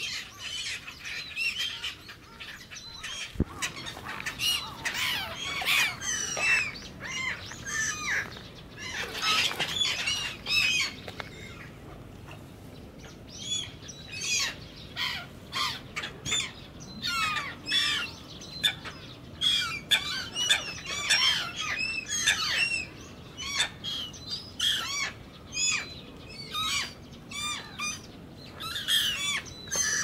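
A flock of black-headed gulls calling over and over with short, harsh cries that overlap, with wings flapping as birds take off and land on the water close by. The flock is feeding.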